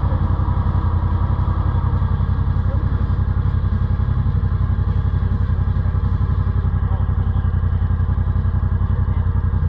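An off-road vehicle's engine runs at a steady, even speed, a constant low drone with a fast regular pulse and no revving.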